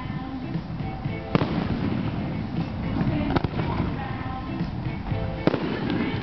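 A fireworks cake firing single shots: three sharp bangs about two seconds apart as shells launch and burst, with music playing underneath.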